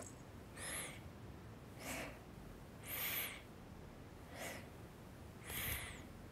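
Cartoon cat's slow breathing, five soft breaths a little over a second apart, every other one with a faint high whistle.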